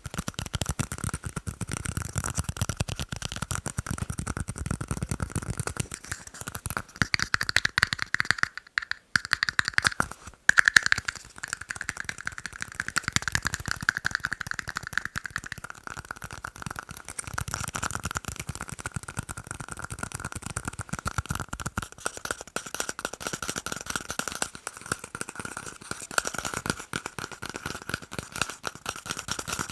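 Fast tapping on tiny cups: a dense, rapid patter of taps with a steady ringing pitch from the cups under it, broken by two short pauses about nine and ten seconds in.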